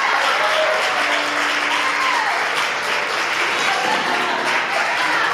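Audience applauding, steady throughout, with a few faint voices over the clapping.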